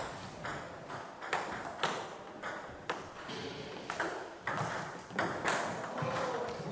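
Table tennis rally: the celluloid ball clicks sharply off bats and table at about two hits a second, each hit ringing briefly in the hall.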